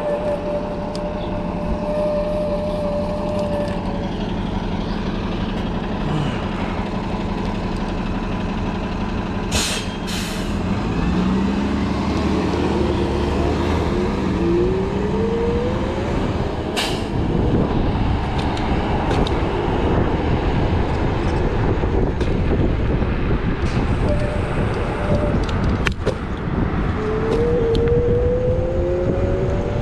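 City street traffic heard from a riding electric scooter, with a heavy vehicle's engine running. There are short sharp air-brake-like hisses about ten and seventeen seconds in, and rising engine or motor whines as vehicles pull away.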